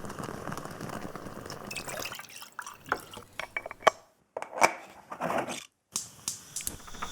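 Bialetti Moka Express stovetop coffee maker gurgling as the coffee rises and flows into the upper chamber: a steady bubbling hiss for the first couple of seconds, then sputtering pops and spurts, the sign that the brew is nearly done.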